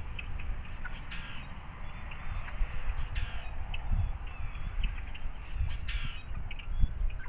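Small wild songbirds giving short, scattered chirps and calls, over a steady low rumble.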